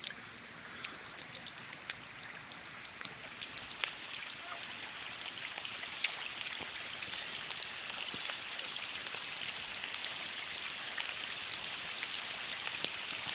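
Rain falling steadily on a wet concrete sidewalk and puddles, with scattered sharp drop ticks; the rain gets a little louder over the first several seconds, then holds steady.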